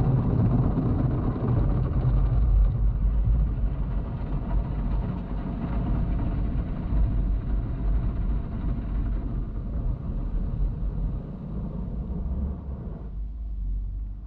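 Automatic car wash heard from inside the car's cabin: water spraying against the body and rotating brushes working over it, with a steady low rumble. The higher hiss drops away near the end.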